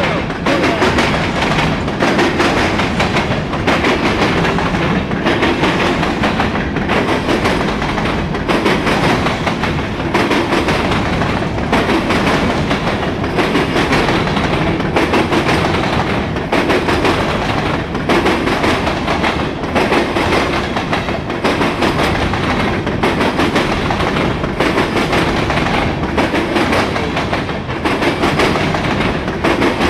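Grain train's freight cars rolling steadily past, wheels clacking continuously over the rail.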